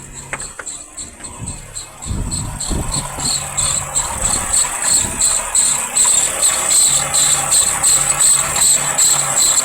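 Car engine idling with a high, rhythmic squeak pulsing about five times a second, louder from about two seconds in. The squeak comes from the water pump, which is squealing though it has no play.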